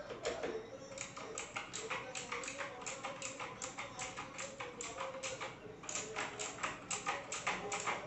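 Typing on a Jedel KL88 mechanical keyboard with blue switches: a steady run of clicky keystrokes, several a second, with a short pause a little past the middle.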